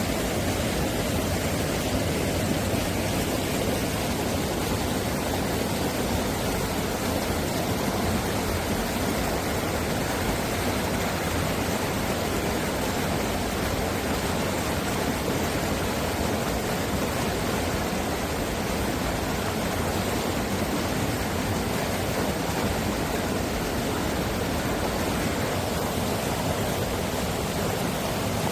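Mountain valley stream rushing over rocks, a steady, unbroken wash of water noise.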